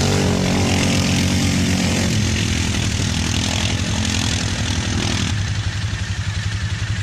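ATV engines running while the quads ford a river, with water splashing loudly. About two seconds in the engine note drops. The splashing stops about five seconds in, leaving a near engine pulsing at low revs.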